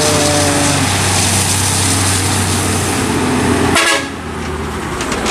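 Intercity bus's diesel engine running as the bus climbs the ramp road past close by, with a short horn toot near the start.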